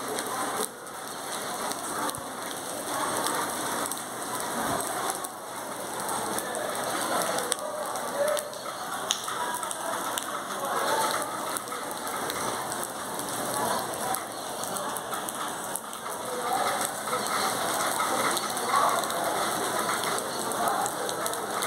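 Steady rain falling on trees and roofing, a dense even hiss of drops with single drop hits standing out here and there.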